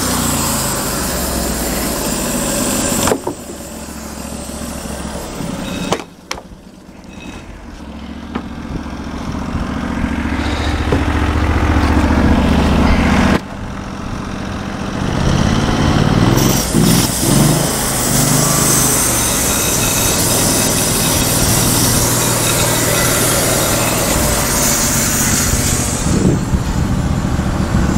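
Gasoline engine of a portable bandsaw sawmill running, its speed and loudness dropping sharply about three and six seconds in, climbing back up, then falling off abruptly about halfway through before picking up again.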